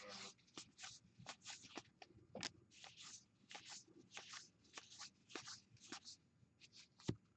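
Faint swishes of cardboard baseball cards being slid one at a time across a stack in the hands, about three a second, with a soft knock near the end.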